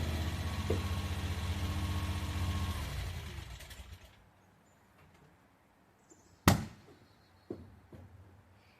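Mini skid steer engine running steadily, then shut off and winding down to stillness about four seconds in. A single sharp knock follows, then two fainter knocks.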